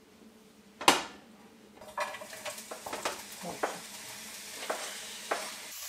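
A sharp knock about a second in, then sliced orange bell pepper sizzling in a frying pan from about two seconds in, with a wooden spatula scraping and clicking against the pan as the strips are stirred.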